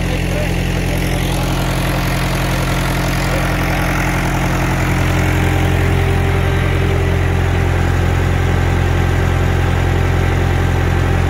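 Mahindra 575 tractor's four-cylinder diesel engine running steadily at about 1400 rpm, driving a PTO generator that powers a 15 hp water-pump motor. It runs smoothly without strain and grows louder about five seconds in.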